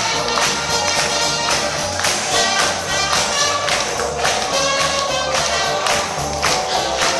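Live band playing dance music with a steady beat.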